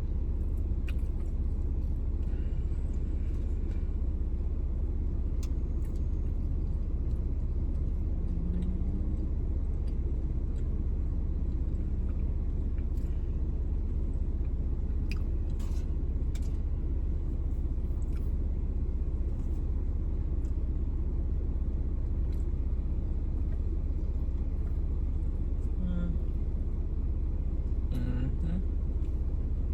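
Steady low rumble of a car's engine idling, heard from inside the cabin, with a few faint clicks from eating.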